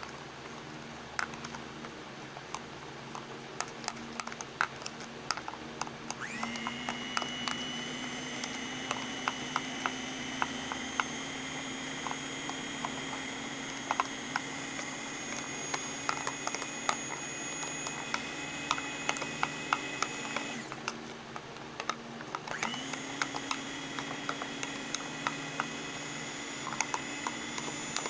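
A spoon clicks against a plastic cup while stirring a coffee mixture. About six seconds in, an electric hand mixer spins up and runs with a steady whine, its wire beaters ticking against the cup as they whip the mixture; it stops for a couple of seconds and then starts again.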